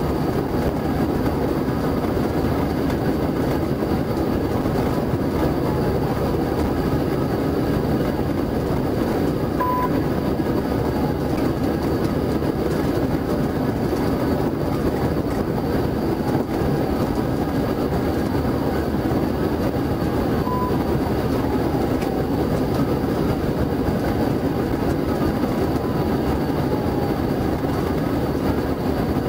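Steady road and wind noise of a patrol car driving fast on an interstate, heard from inside the cabin. Two short, faint high tones about ten and twenty seconds in.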